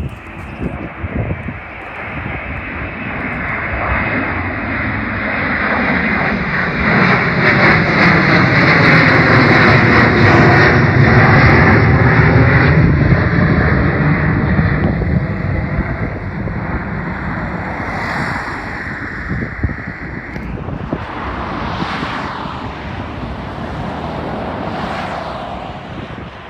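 Airplane engines passing close by, the sound building to a peak about halfway through and then slowly fading, with wind on the microphone.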